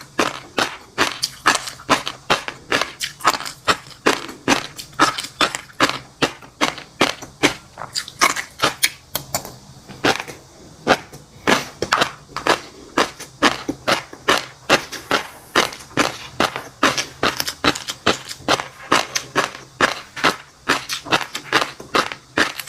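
Close-miked ASMR eating of fish roe and crunchy seafood: a steady run of sharp crunching pops, about two to three a second.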